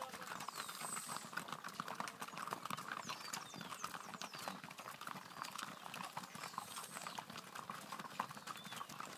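Mule hooves clopping as a pack train walks, many irregular overlapping steps.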